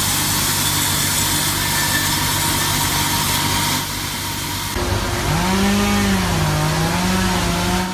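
Paired alloy-toothed circular saw blades of an automatic-feed log ripping machine running through a log, a steady saw-and-motor noise with a low hum. A little after halfway the sound changes and a wavering melodic tone comes in over the machine noise, the start of background music.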